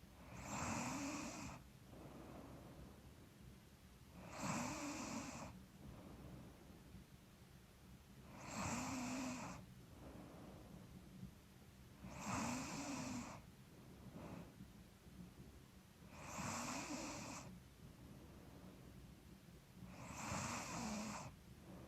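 A sleeping woman snoring in a slow, even rhythm: six snores about four seconds apart, each a short rattling breath with a low buzzing pitch. She puts the snoring down to being a little stuffy.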